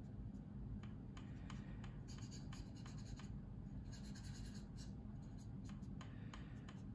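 Faint scratchy strokes of a cotton swab rubbing and dabbing oil paint on the plastic wing of a scale model aircraft, in short spells with light ticks between, over a steady low hum.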